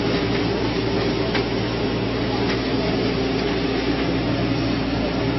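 An engine running steadily, a low even hum, with a couple of faint clicks.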